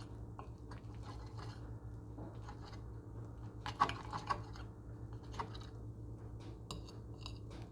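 A person chewing a bite of enchilada, with scattered small clicks and a short, louder cluster of taps about four seconds in, over a steady low hum.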